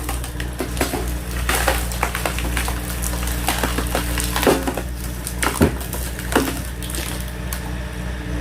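Homemade hydraulic log splitter forcing a log apart: the wood cracks and splinters in a string of sharp snaps over the steady hum of the engine driving the hydraulics.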